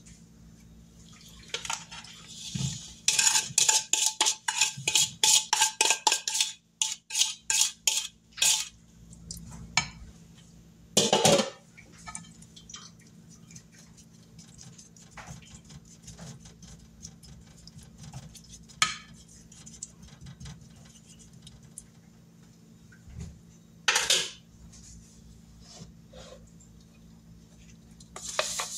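Spoon knocking and scraping blackberries out of a mixing bowl into a glass baking dish: a quick run of knocks and clinks, about four a second, with a faint ring, for several seconds near the start. After that come scattered light taps and a few scrapes as the berries are spread in the dish.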